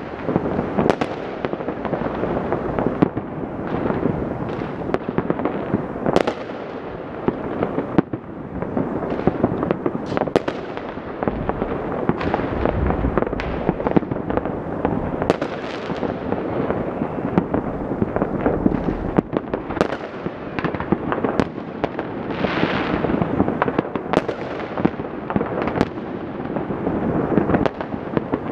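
Many fireworks and firecrackers going off at once: an unbroken crackle of overlapping bangs, with sharp louder reports every second or so.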